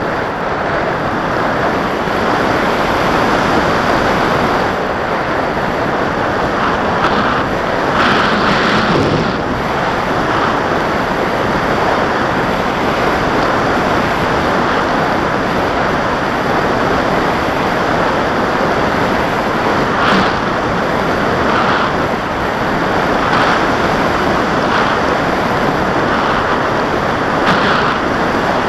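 Airflow and motor-propeller noise picked up by a camera riding on an AXN Floater Jet RC foam plane in flight: a steady rushing hiss of wind over the microphone that swells briefly a few times.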